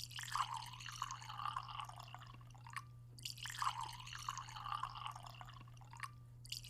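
Water running from a Whirlpool refrigerator's door dispenser into a bucket, splashing unevenly and breaking off briefly twice, over a steady low hum. The dispenser is purging air and carbon dust from a newly installed water filter.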